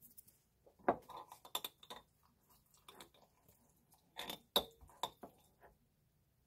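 A small metal spreading knife clinking and scraping against a glass jar as guacamole is scooped out, with several light knocks in irregular clusters, a few with a brief high ring.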